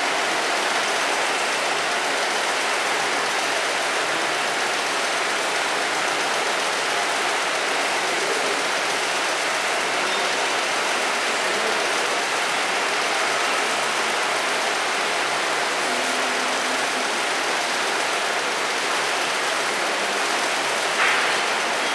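A machine running with a steady, even, unchanging noise, and a short sharp sound about a second before the end.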